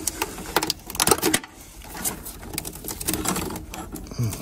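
Quick light clicks and rattles of hands handling plastic connectors and wiring, busiest in the first second and a half, then softer handling noise.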